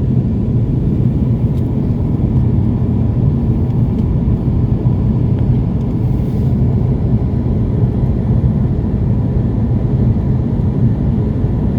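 Airliner cabin noise in flight: a steady, loud low rumble of engines and airflow heard from inside the passenger cabin.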